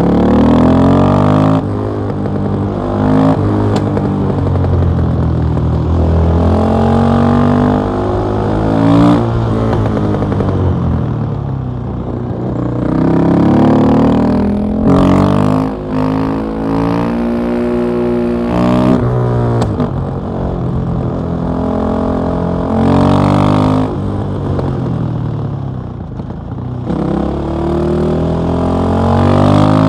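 KTM 660 SMC supermoto's single-cylinder engine with an Akrapovic exhaust, under way and revving: its pitch climbs and drops back over and over as the rider opens and closes the throttle.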